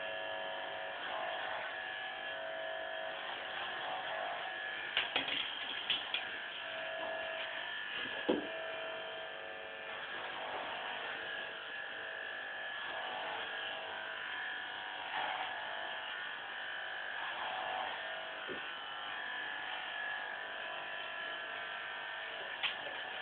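Electric hair clippers buzzing steadily as they cut a boy's hair short, with a few short clicks between about five and eight seconds in.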